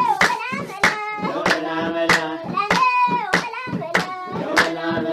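Children singing a song to steady hand claps, about three claps every two seconds.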